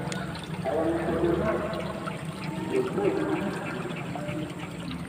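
Steady rush and splash of a small, fast-flowing ditch stream.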